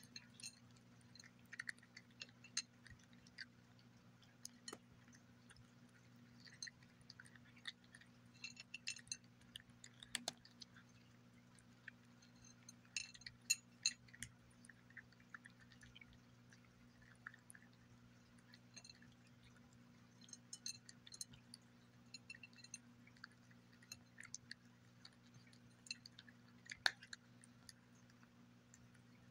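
Cat crunching dry kibble from a glass plate: faint, irregular crunches and sharp clicks in scattered flurries with pauses between, some of them from kibble or teeth against the glass.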